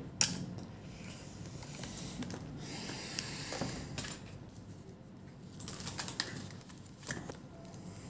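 Scattered clicks and light clatter as a laptop motherboard and a multimeter are handled and moved around on a rubber work mat, the board being turned over.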